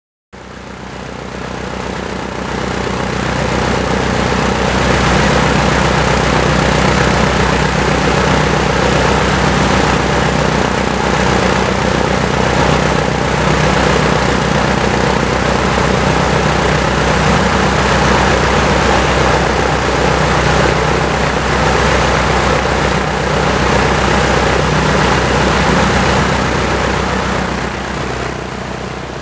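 Lycoming O-320 D3G, a 160 hp four-cylinder aircraft engine, running steadily in a Van's RV-7A on a ground run-up, with its propeller turning. The engine has about 900 hours on it.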